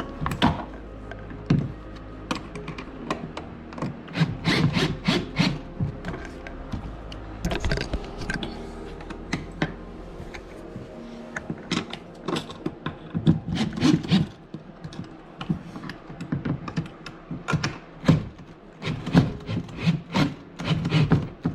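Hand-tool work on the bolts of a trolling-motor mount: irregular clicks, knocks and rubbing of metal hardware, often in quick bunches, as nuts and washers are fitted and tightened.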